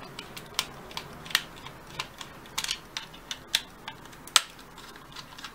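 Flat screwdriver loosening the terminal screws of a double plug socket, the cables being freed: irregular small clicks and scrapes, several a second, with a sharper click a little past four seconds in.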